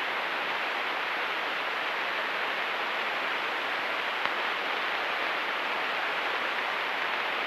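Steady, even hiss of static on the cockpit radio and intercom audio feed between transmissions.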